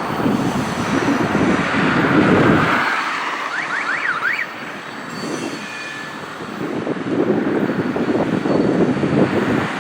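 Freight train rolling past, a rumbling clatter of wheels on the rails that eases for a few seconds in the middle and then builds again. A few short high-pitched squeaks come about four seconds in.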